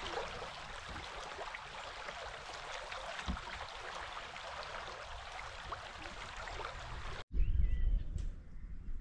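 Water of a stream flowing and babbling steadily, cut off suddenly about seven seconds in; then wind rumbling on the microphone.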